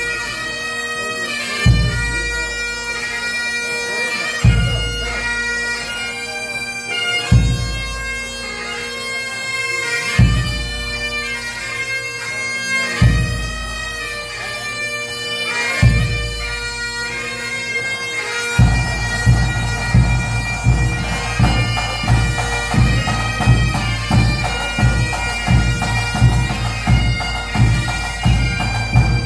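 Pipe band playing: bagpipes sounding a steady drone under the melody, with a bass drum struck once about every three seconds. About two-thirds of the way in, the drums pick up into a quicker, steady beat of about two strokes a second.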